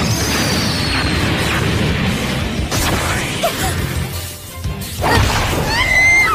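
Anime fight sound effects, whooshes and impact hits, over dramatic background music, with a louder hit near the end.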